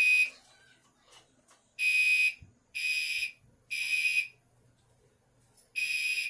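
Gentex Commander 3 fire alarm horn sounding the temporal code 3 evacuation pattern: three half-second blasts of a steady high tone about a second apart, a pause of about a second and a half, then the next set begins near the end.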